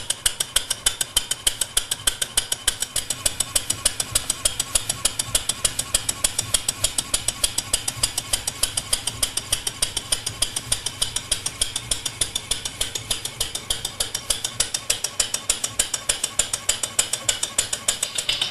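PM Research 6CI horizontal steam engine running steadily on compressed air, its exhaust and moving parts beating in an even rhythm of about four to five chuffs a second.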